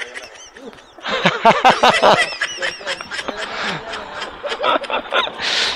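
A person snickering and laughing in quick bursts, mixed with talk.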